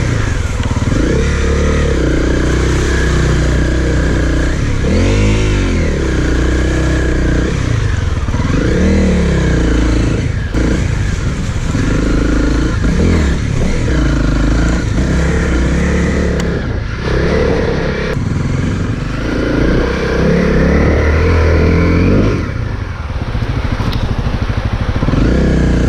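Honda CRF250L's single-cylinder four-stroke engine riding a trail, its pitch rising and falling again and again as the throttle is worked and the gears change, with a few knocks along the way.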